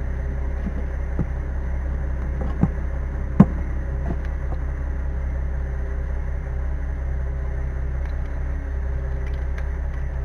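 Light clicks and knocks as an aluminium oil-bath hub cap and its air-line fitting are handled against a trailer wheel hub, the sharpest about three and a half seconds in, over a steady low hum.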